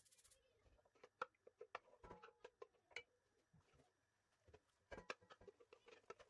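Faint, scattered clicks and taps from a wooden spoon and a plastic blender jug as blended paste is scraped into a pot and stirred.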